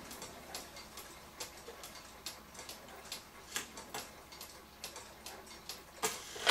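A one-day cuckoo clock's movement ticking steadily, running again after repair. Near the end a louder sound starts as its hands are turned.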